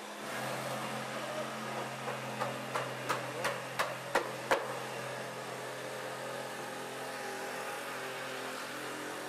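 Jigsaw starting up and cutting steadily through a wooden stair stringer, its motor holding one pitch. A run of about seven sharp knocks sounds from about two seconds in to about four and a half seconds in.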